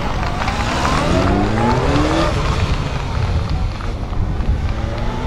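Honda CB1300P police motorcycle's inline-four engine revving under hard throttle through a cone slalom. Its pitch climbs in several short runs over the first two seconds, then eases off and runs lower.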